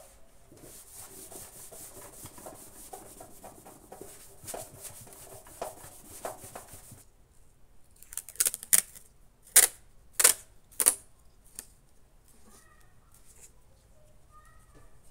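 A cloth rubbing over the metal face of a satellite dish in quick back-and-forth strokes, scrubbing off its chrome paint. After a pause, about six short, sharp tearing sounds, louder than the rubbing: adhesive aluminium tape being pulled off its roll.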